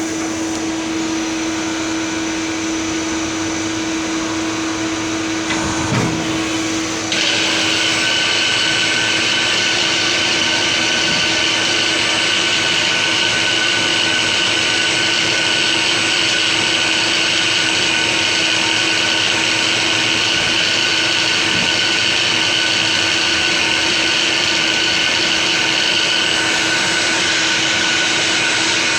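CNC turn-mill machine running with a steady hum and hiss; about seven seconds in, after a single knock, it gets louder with a higher whine and hiss that then holds steady.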